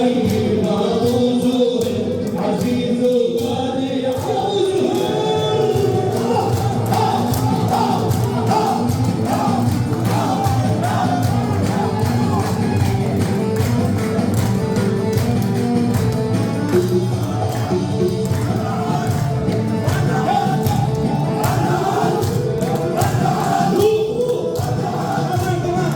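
Arabic wedding music: a group singing together over a steady beat of drums and hand percussion.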